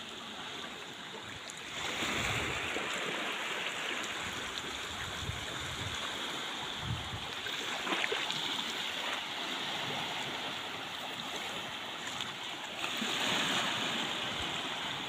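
Small sea waves lapping and washing over rocks in shallow water at the shoreline, swelling about two seconds in and again near the end.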